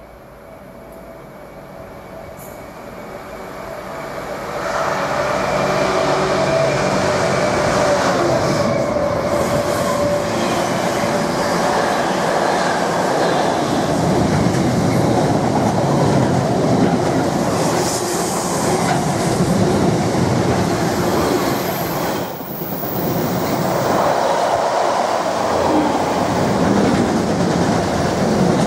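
Container freight train approaching and then passing close by at speed. The noise builds over the first five seconds, then holds as a steady loud rush of wheels on rail while the intermodal container wagons go by, with one brief dip about three quarters of the way through.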